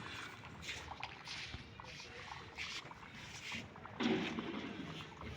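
Faint, irregular splashing and trickling of water, coming in short uneven spurts.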